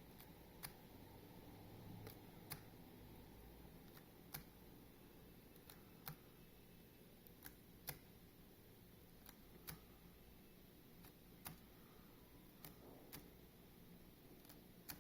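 Faint clicks of Mac keyboard keys tapped in an uneven rhythm, often two close together, over low room noise: Command and R being pressed repeatedly during a restart to boot into Recovery Mode.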